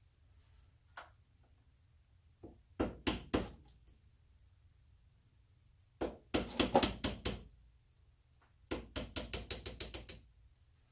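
Hammer tapping a pin punch to drive the roll pin out of a Volkswagen Beetle door handle lock. A few sharp metal strikes come first, then two quicker runs of taps, the last at about six a second.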